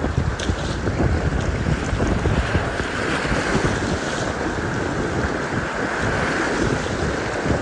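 Rushing, high river water with wind buffeting the microphone.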